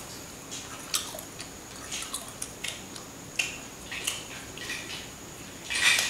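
Eating with the hands: scattered wet smacks and small clicks of chewing and of picking meat off small bird bones, with a louder cluster of smacks near the end.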